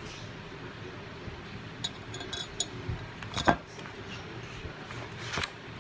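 Low steady room noise with a few light clicks a little under two seconds in, a louder knock about halfway through and another near the end.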